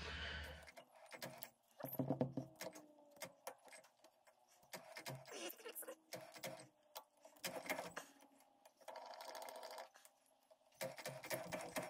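Spring wire being wound around a mandrel as a lathe chuck is turned by hand: faint, irregular metallic clicks and ticks of the wire and chuck, with short pauses.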